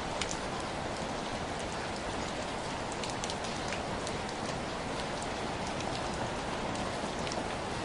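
Steady rain falling, with individual drops ticking sharply here and there on top of the even hiss.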